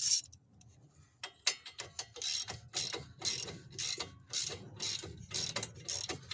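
Hand ratchet wrench clicking in quick back-and-forth strokes, about three a second, starting about a second in, as it backs a stuck castle nut off a ball joint stud.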